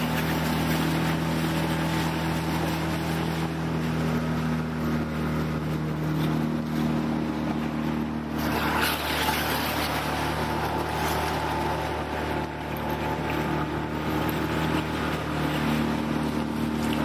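Outboard motor on an inflatable rescue boat running under way at a steady pitch, with water rushing past the hull.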